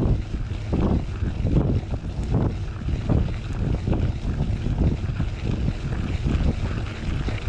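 Wind buffeting the camera microphone in uneven gusts over the low rumble of a knobby mountain-bike tyre rolling on gravel.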